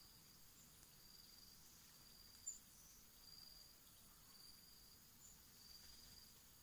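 Faint insect trilling in short high-pitched pulses about once a second, with one brief sharper chirp about two and a half seconds in.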